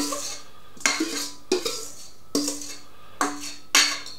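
A spoon knocking and scraping against the rim of a mixing bowl as a sticky fruit-and-apple mixture is cleared out into a saucepan. There are about six sharp knocks, roughly one every 0.7 s, each leaving the bowl briefly ringing.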